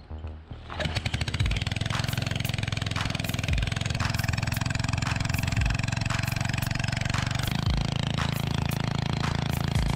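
Small portable generator engine, a Maxa, starts up about a second in and then runs steadily on wood gas fed through a pipe from a homemade gasifier, with a low thump about every two seconds. Its note shifts about seven and a half seconds in.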